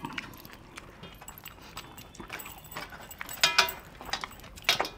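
Scattered light metallic clinks and scrapes as fingers and metal rings knock against a stainless-steel plate while food is picked up by hand. A few sharper clinks come past the middle and near the end.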